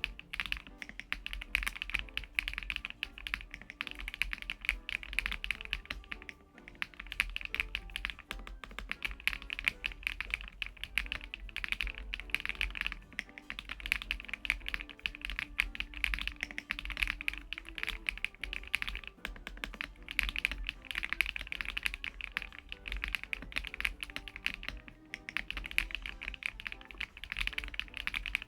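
Fast, continuous typing on a LUMINKEY LUMINO75, a gasket-mounted 75% mechanical keyboard with an aluminium case and PBT keycaps: a dense stream of keystroke clacks with a couple of brief pauses. Quiet background music plays beneath it.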